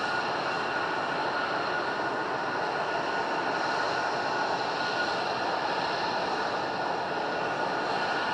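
Military jet engines running at low, taxiing power: a steady rushing noise with a high whine held on a few fixed pitches.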